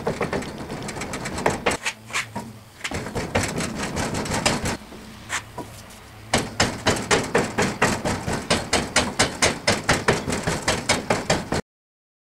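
Molding sand being rammed into a foundry flask by hand, a rammer pounding the sand: uneven knocks at first, then quick regular strikes about four or five a second in the second half. The sound cuts off abruptly near the end.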